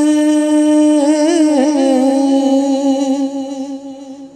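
Solo voice singing a naat with no instruments, holding one long note of the line with a brief wavering ornament about a second in, then settling a little lower and fading out near the end.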